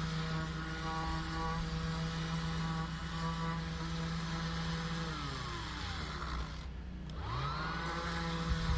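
Electric power tool motor running with a steady hum. About five seconds in it winds down almost to a stop, and shortly after seven seconds it spins back up to full speed.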